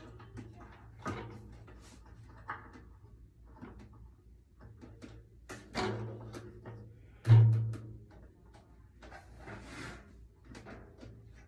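Clicks and knocks of drum hardware being handled and adjusted, with a drum giving a loud low boom about seven seconds in, ringing briefly, and a softer one a little before it.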